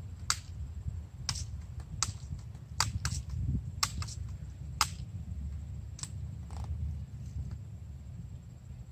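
BB guns firing and BBs smacking into the plastic of a gutted boombox: about ten short, sharp cracks at irregular intervals, thinning out after about seven seconds.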